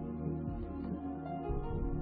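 Soft ambient background music with sustained, steady tones.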